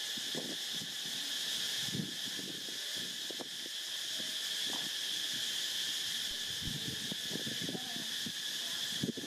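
A steady, high-pitched insect chorus, with scattered soft knocks and rustles from footsteps and handling.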